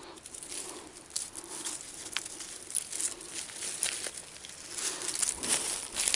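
Dry leaf litter and loose soil rustling and crunching in irregular scrapes while a dug hole is worked, growing louder near the end.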